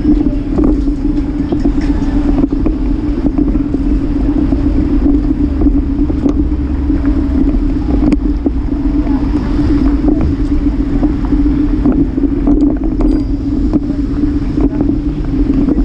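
Steady rumble with a constant low hum from a bicycle ride on city pavement, picked up by a bike-mounted camera. Scattered small knocks and clicks.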